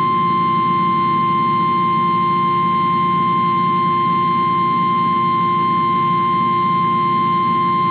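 NOAA Weather Radio warning alarm tone: a single steady, unbroken 1050 Hz tone over a low background hum. It is the alert signal that comes before a spoken warning broadcast, here a tornado warning.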